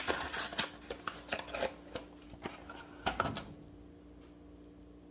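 Light clinks and knocks of utensils and small containers being handled, a quick string of short taps that stops about three and a half seconds in, leaving only a faint steady hum.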